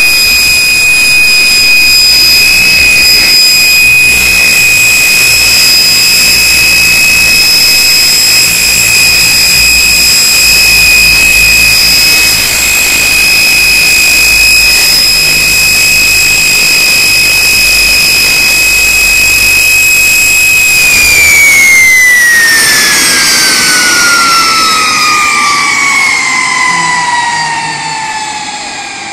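Fouga Magister's twin Turbomeca Marboré turbojets running with a steady high whine over a low exhaust rumble as the jet taxis. About three-quarters of the way through, the whine falls steadily in pitch and fades as the engines spool down at shutdown.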